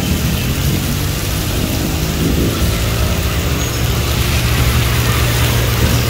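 Heavy rain pouring steadily onto a flooded road, with motor traffic driving through the water and a vehicle engine running with a low, steady hum underneath. The hum grows stronger about halfway through.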